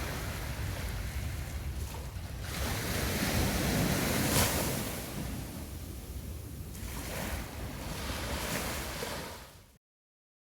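Ocean surf breaking on a beach, the rush of the waves swelling loudest about four seconds in and again near the end. The sound then fades out and cuts to silence.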